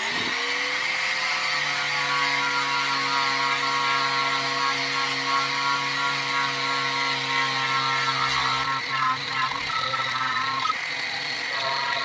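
Angle grinder fitted with a fibrous strip-and-clean disc, spinning up to speed in the first moment and then running steadily as it is pressed against the car's steel heel board, stripping paint and rust back to bare metal. The motor's tone shifts about eight seconds in while the abrasive hiss carries on.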